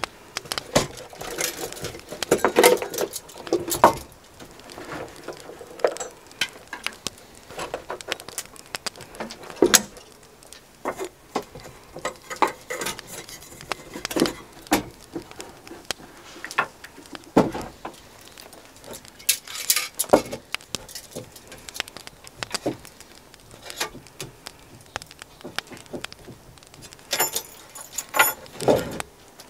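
Brass Optimus Svea camping stove and its case being unpacked and handled on a wooden plank bench: irregular clicks, knocks and light metal clinks, with a quick run of sharper metallic clicks near the end.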